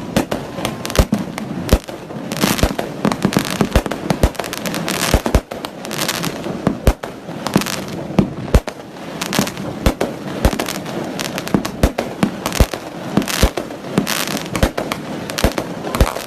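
Fireworks and firecrackers going off: sharp bangs at irregular intervals, sometimes several within a second, over a steady rushing background noise.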